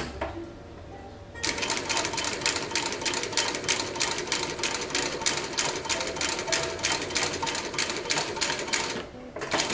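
Unicorn H560-1 compound-feed (top and bottom feed) cylinder-bed industrial sewing machine stitching through a leather strap. After about a second and a half it starts running in a steady, even rhythm of needle strokes and stops about nine seconds in, then sews a short burst of a few stitches near the end.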